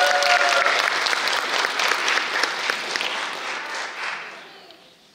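Audience clapping, with a held whoop of cheering over the first second; the applause thins out and dies away about four to five seconds in.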